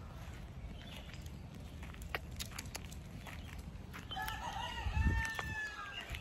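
A rooster crowing once, one long call of about two seconds starting about four seconds in, over a low background rumble.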